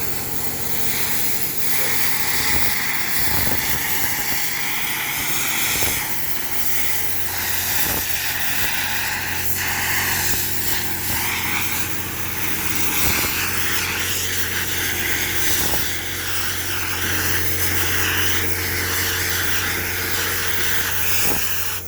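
Chipping hammers breaking hardened concrete out of a mixer truck's drum: a dense, steady hissing rattle over a steady engine hum, with scattered sharp knocks.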